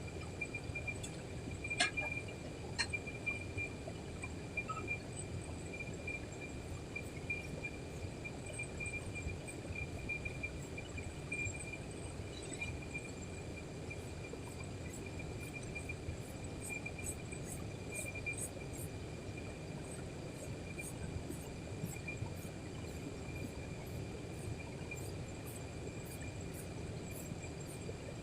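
Insects chirping: a thin steady high tone with short very high chirps repeating about once or twice a second. Under them is a steady low rumble, with a couple of sharp clicks a few seconds in.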